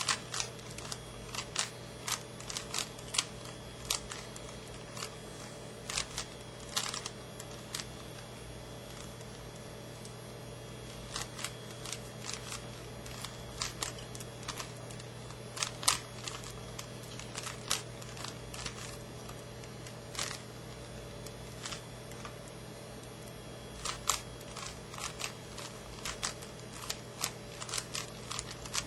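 Plastic clicks and clacks of a well-worn Rubik's Cube as its layers are turned by hand, coming in irregular flurries with short pauses between them. A steady low hum runs underneath.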